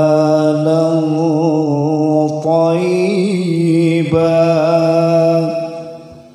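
A man reciting the Qur'an in the melodic tilawah style, holding long, ornamented notes. The phrase ends a little before the end.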